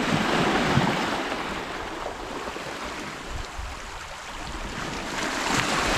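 Small sea waves washing over rocks and stones at the shoreline. The wash fades in the middle and swells again near the end.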